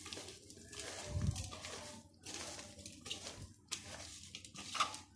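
Moist grated raw potato being tossed and mixed with dry spices by a gloved hand in a plastic bowl: soft, irregular squishing and rustling.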